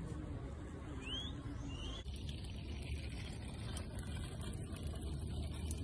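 Steady low rumble, with two short rising whistled bird notes a moment apart about a second in.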